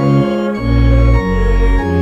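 Organ playing a hymn in full held chords, the bass stepping to a new note about every half second.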